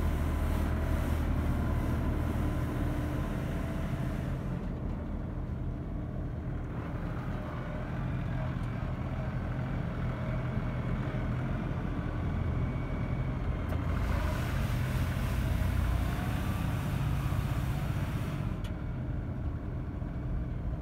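LS compact tractor's diesel engine running steadily as the tractor drives slowly past, a low, even engine drone. A higher hiss lies over it for the first few seconds and again from about fourteen seconds in.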